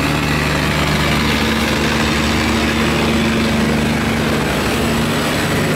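A river boat's engine running steadily close by, a low even hum that holds one pitch.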